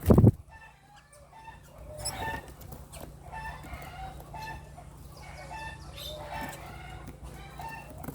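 Birds calling in a run of short, repeated pitched notes, with a loud thump right at the start.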